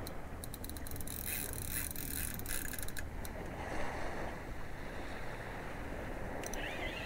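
Fishing reel clicking in quick runs of sharp ticks during the first three seconds, over a steady low rumble of wind and sea.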